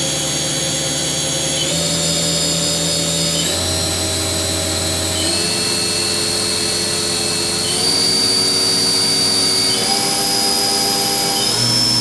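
Haas VF-2D CNC machining center's spindle running at high speed, its whine stepping up in pitch every couple of seconds as the speed is raised from about 5,000 toward 9,000 RPM.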